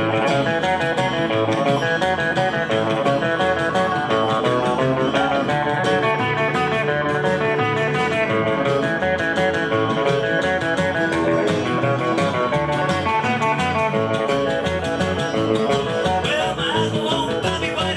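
Live band playing an instrumental break in an upbeat country-rockabilly song, led by guitar, with a steady beat and no singing.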